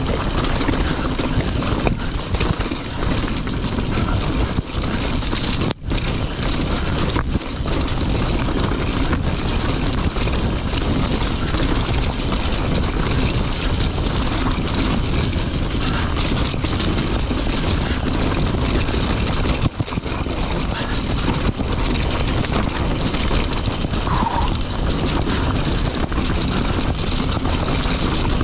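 Steady rushing wind noise on a rain-soaked microphone muff, mixed with a mountain bike rattling down a rocky, wet track at speed. The noise drops out briefly about six seconds in.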